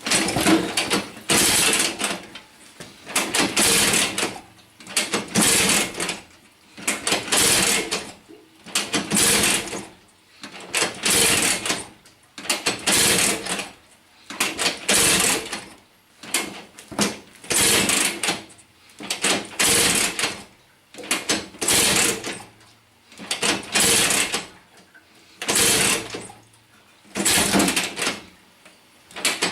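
Vyatka scooter's single-cylinder two-stroke engine kicked over again and again, about one stroke every two seconds, without starting.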